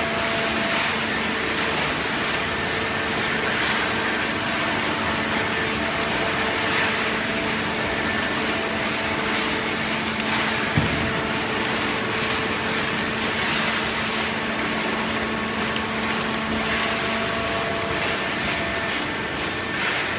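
Hydraulic horizontal baling press for shredded paper running: steady machine noise with a low steady hum that drops away near the end, and one sharp knock about halfway through.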